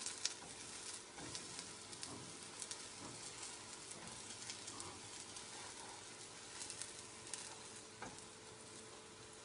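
Dahi kebabs shallow-frying in olive oil on a tawa: a steady, faint sizzle with scattered crackles and pops.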